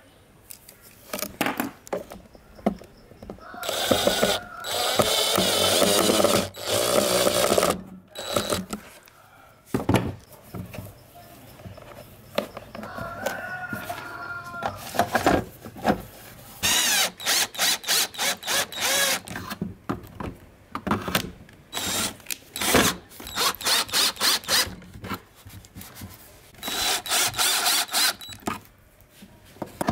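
Workshop handling sounds from rewiring an electric fan: a run of clicks, knocks and rustles. A cordless drill runs in bursts, the last one near the end driving screws into the fan's plastic casing.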